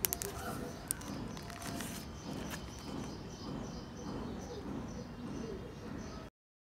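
Plastic wrap and the phone being handled, with a few sharp clicks and crinkles in the first second, then steady outdoor background noise with faint bird chirps. The sound cuts off suddenly near the end.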